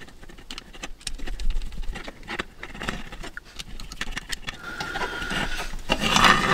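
Small screwdriver turning the screw of a plastic terminal block to clamp wires, with many light clicks and scrapes of metal on plastic. A denser scraping and rustle comes near the end as the plastic housing and wires are handled.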